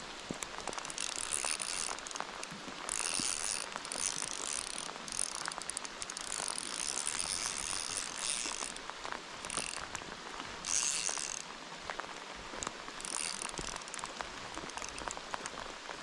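Fishing reel's drag buzzing in repeated bursts as a hooked fish pulls line off, with one longer run a little past the middle. Light rain patters throughout.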